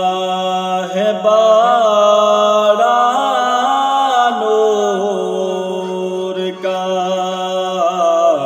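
A man sings a naat, an Urdu devotional poem, unaccompanied by instruments, drawing out long ornamented notes that bend up and down. A steady low drone hums beneath the voice.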